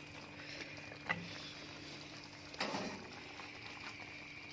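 Quiet kitchen background: a faint steady hum, with a small click about a second in and a soft clatter at about two and a half seconds.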